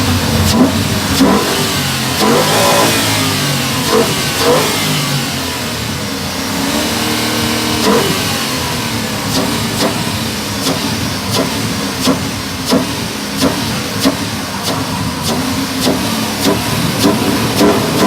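Ford Mustang engines revving, the pitch rising and falling, with short sharp rev blips coming repeatedly in the second half.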